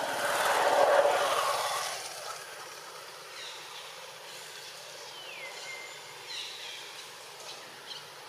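A passing motor vehicle's noise peaks about a second in and fades away by two seconds. After it come faint bird calls, short whistles, some sliding down in pitch.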